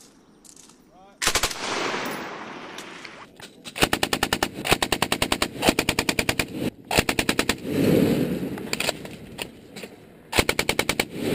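Belt-fed machine gun firing several short bursts of rapid shots, each burst followed by a rolling echo.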